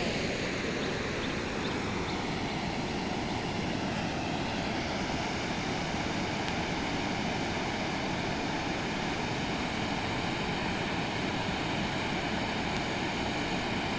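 Steady rushing roar of the Ban Gioc waterfall in flood, heavy water pouring over the falls, even and unbroken.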